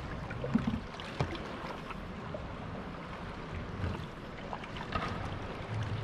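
Kayak paddling on calm lagoon water: soft splashes and drips from the paddle blades, with a few short sharp ticks along the way.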